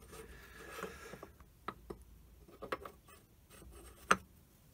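Lathe half nuts, cast iron with bronze threads, being slid by hand into their slot in the apron: a soft metal scrape for about a second, then a few light metal clicks and knocks as they are seated, the loudest near the end.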